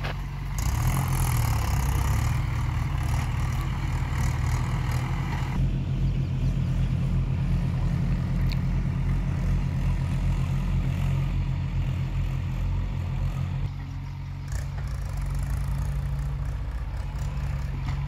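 Diesel engine of earthmoving machinery running steadily with an even, low chugging pulse. A rushing noise sits over it for the first few seconds, and the engine sound drops slightly about fourteen seconds in.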